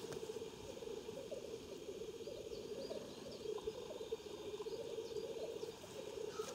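Black grouse bubbling lek song (rookooing), the courtship display call of males on a lek: a steady, low, rapidly warbling bubbling without pause.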